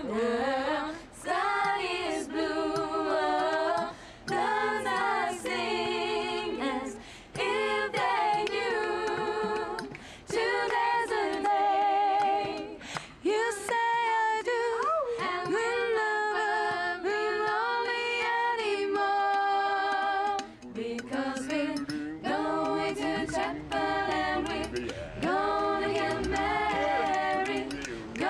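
A small group of voices singing together a cappella in harmony, in long held phrases with vibrato and short breaks between them.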